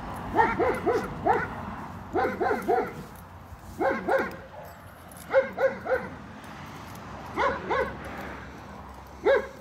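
A dog barking in short volleys of two to four barks, about six volleys, with pauses of a second or so between them.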